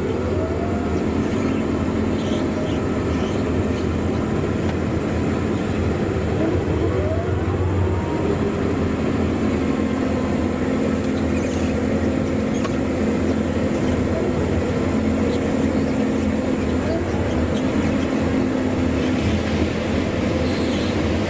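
Claas Lexion 670 combine harvester running steadily under load in grain corn, a constant machine din and hum, with a short rising whine near the start and another around seven seconds in.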